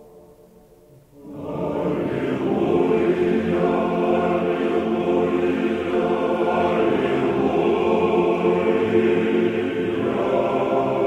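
Choir singing Orthodox chant. The previous phrase has faded almost to nothing, and about a second in a new phrase starts as a full, sustained chord that holds, shifting slightly near the end.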